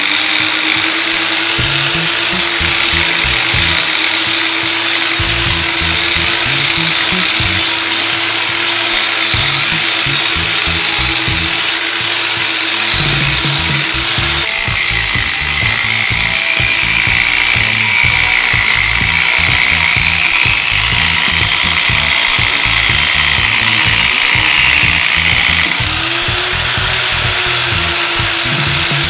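Kawasaki variable-speed angle grinder with a diamond polishing pad, running steadily while sanding the edge of a concrete countertop. Its motor whine shifts pitch about halfway through and climbs again near the end as the speed or load changes.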